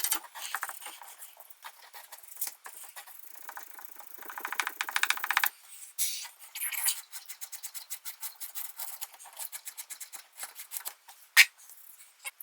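Hand tools scraping and clicking on copper pipe in quick rhythmic bouts, part of preparing the pipe ends for soldering on ball valves. A single sharp knock near the end.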